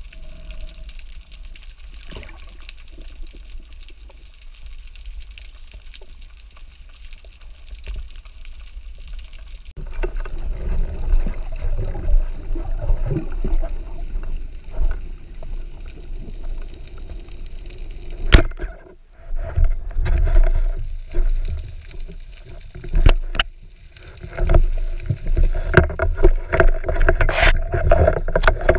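Underwater water noise picked up by a diver's camera: a steady low rush that turns louder and choppier from about ten seconds in, with a few sharp clicks.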